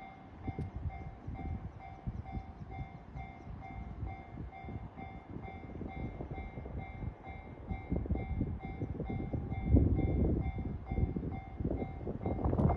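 Japanese level-crossing alarm bell ringing over and over in an even beat while an E531 series electric train rolls through at low speed. The train's rumble grows from about eight seconds in, with a loud knock about ten seconds in and the wheels knocking over the rail joints near the end.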